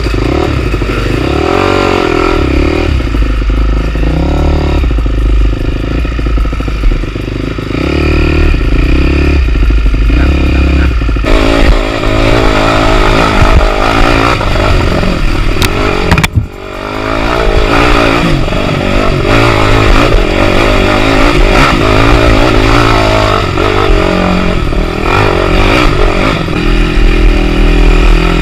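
Dirt bike engine running under way on a rough trail, recorded close to the bike, its pitch rising and falling as the throttle is worked. A short break in the sound about 16 seconds in.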